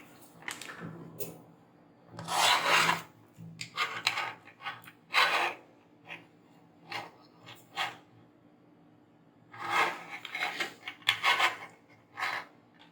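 A dozen or so short, irregular scraping and rubbing strokes of a hard tool working on a circuit board, some sharp and brief and a few longer, over a faint steady hum.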